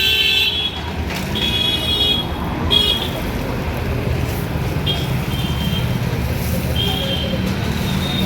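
Busy street traffic running steadily, with several short, high-pitched vehicle horn honks spread through it.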